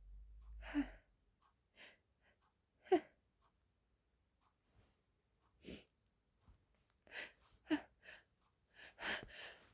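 A woman's short sniffs and breathy gasps, one at a time a second or more apart, as another sneeze builds during a sneezing fit. They come closer together just before the end.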